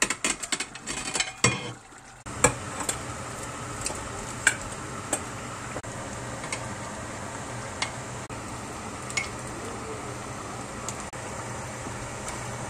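Meat and fish pieces dropping from a plate into a pot of simmering sauce, with a quick run of clinks and knocks in the first two seconds. After that comes a steady hiss of the sauce cooking, with occasional sharp clinks of a spoon against the stainless steel pot.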